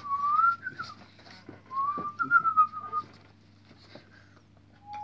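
A person whistling through pursed lips, in short wavering phrases: a rising whistle at the start, a two-part whistle about two seconds in, and a brief lower note near the end.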